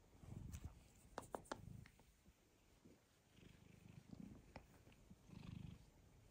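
Domestic cat purring faintly while being stroked, the purr swelling and fading with each breath about once a second. A few light clicks come between one and two seconds in.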